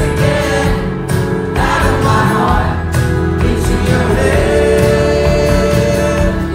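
Live pop band playing with a male singer's lead vocal, holding long sung notes over the band.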